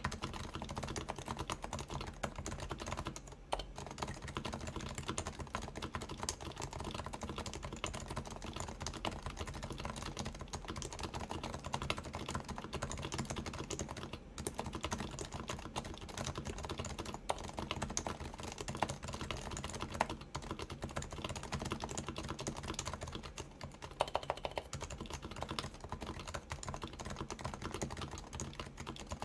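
Continuous typing on a Keyhub Design RF-8X keyboard with 45g Topre switches, silenced with sliders and rings, under OEM Realforce keycaps: a dense, steady stream of keystrokes, with a brief flurry of sharper strokes about three-quarters of the way through.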